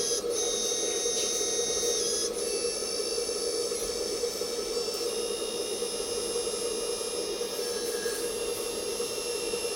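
Small electric hydraulic pump of a radio-controlled hook-lift truck running steadily, a constant buzz under a high whine whose pitch shifts a few times.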